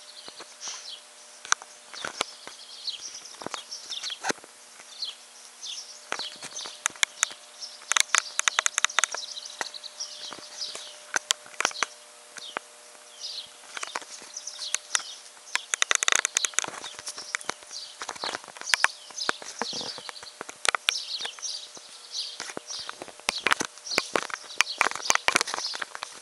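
Handling noise from a small handheld digital camera as it is carried about and swung around: irregular knocks, taps and rubbing against the microphone, with high chirping throughout.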